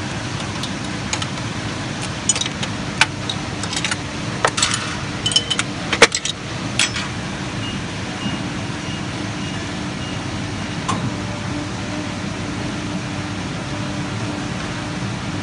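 Heidelberg Printmaster PM 74 sheetfed offset press turning its plate cylinder slowly during a semi-automatic Easyplate plate change: a steady mechanical hum. Between about two and seven seconds in comes a run of sharp metallic clicks and clacks from the plate-change mechanism, followed by a faint high pulsing beep.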